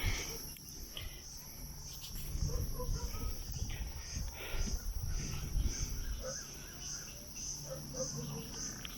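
Insects chirring steadily as a high, gently pulsing drone. A low rumble runs under it.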